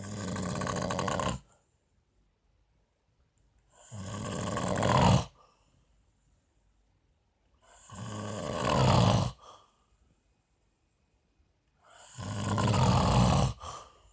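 A man snoring: four snores about four seconds apart, each lasting over a second and growing louder toward its end.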